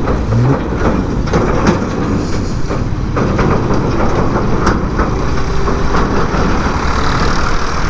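Road noise from a moving motorcycle riding close behind and past a farm tractor towing a steel trolley: a steady low engine rumble, with frequent rattling knocks from the trolley.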